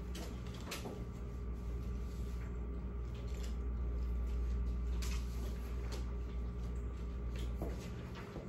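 Classroom room tone: a steady low hum with scattered faint rustles and clicks.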